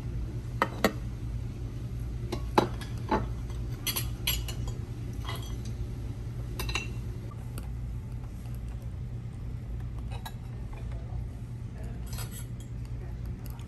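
Cutlery and dishes clinking at a dining table: a scattering of sharp clinks and taps, most in the first few seconds and a few more later, over a steady low hum.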